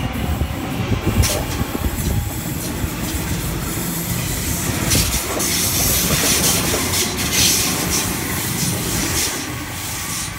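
Sydney Trains Waratah double-deck electric train pulling out, carriages rolling past close by: a steady rumble and hiss of steel wheels on rail, with scattered sharp clicks.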